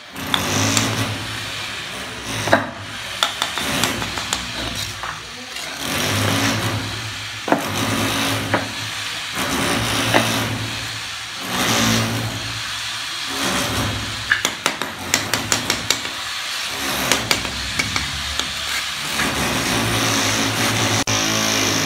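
Bricklaying with a steel trowel: mortar being scraped and spread, and red clay bricks clinked and tapped into place, giving many sharp knocks and clicks, a quick run of them about two-thirds of the way in. Under it a low engine-like hum comes and goes.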